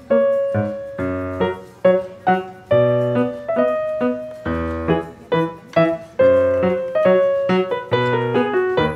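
Background piano music: a steady run of struck notes that fade after each strike, with low bass notes underneath.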